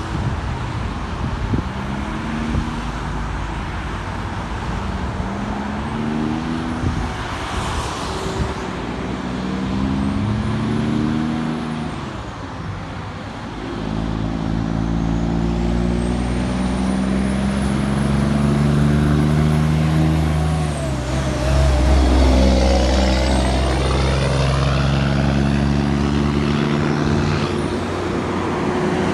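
Straight-piped Kenworth T800's diesel engine pulling a heavy lowboy load, its note climbing and dropping back again and again as it shifts up through the gears. It gets louder as the truck comes close, about two-thirds of the way through, and then fades as it moves away.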